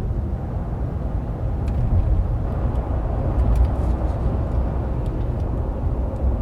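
Car interior ambience heard inside the cabin: a steady low rumble of engine and road noise, with a few faint light clicks.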